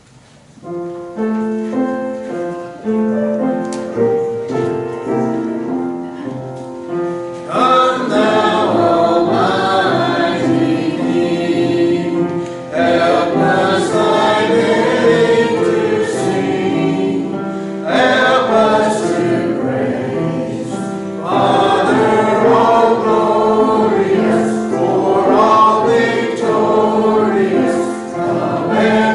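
Church choir and congregation singing a hymn with accompaniment. A short introduction of steady held notes comes first, and the voices join about seven and a half seconds in.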